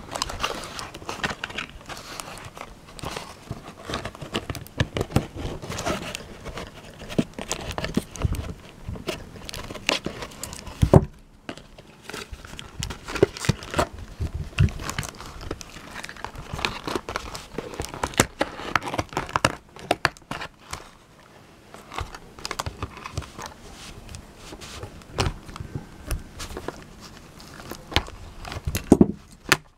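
Cardboard toy box and its plastic packaging crinkling and rustling as hands pull it open, with scattered clicks and a sharp knock about 11 seconds in. Scissors cut at the packaging near the end.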